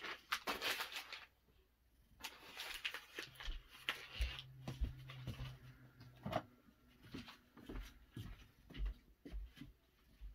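Soft rustling of fingers rubbing a cat's fur and paw pads close to the microphone, with scattered small clicks of handling. A low steady hum sounds for a few seconds in the middle.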